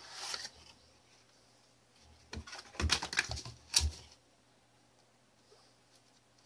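Cardboard watch box and paper packaging handled by hand: a brief rustle at the start, then a cluster of sharp clicks and rustles about two to four seconds in as the inner box is opened and the folded instruction booklet is pulled out.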